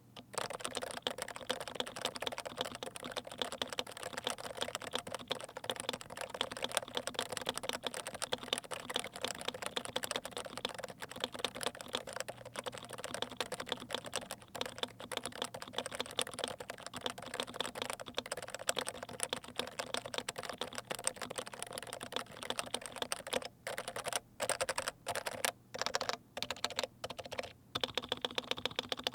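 Typing on a Norbauer Heavy 6 keyboard with lubed Topre electro-capacitive switches fitted with pink Deskeys BKE domes and GMK keycaps: a steady stream of fast keystrokes, breaking into a handful of separate presses near the end.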